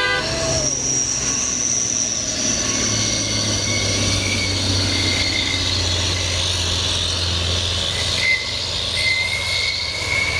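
Heavy diesel vehicle engine running with a steady low drone, with a thin high whine above it.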